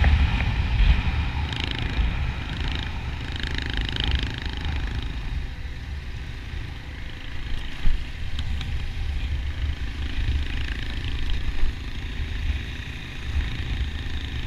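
Motorcycle riding at road speed, heard from a camera on the bike. The engine runs under a steady, uneven low rumble of wind on the microphone.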